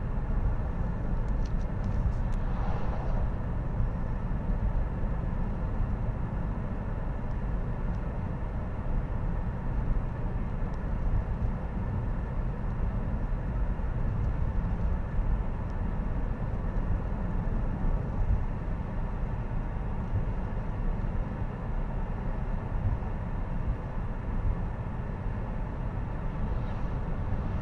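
Steady road and engine noise inside the cabin of a car driving along a highway, a continuous low rumble with no distinct events.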